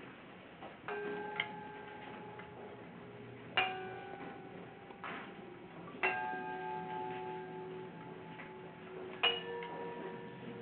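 Hanging metal objects struck one at a time, each strike ringing on for a few seconds with several clear tones. There are four main strikes about every two and a half to three seconds, with lighter taps between them.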